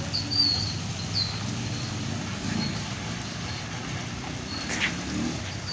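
A vehicle engine running steadily with a low rumble, with short high chirps over it and a brief sharp sound near the end.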